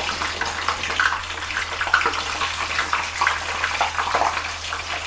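Potato sticks deep-frying in hot oil (about 180 °C) in a frying pan: a steady sizzle full of small irregular crackles.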